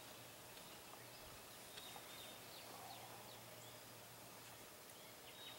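Near silence: quiet outdoor ambience with a few faint, short bird chirps scattered through it.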